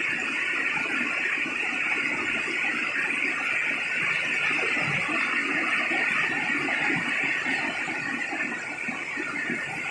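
Heavy downpour of rain falling steadily, a dense, even hiss of rain on the street and roofs.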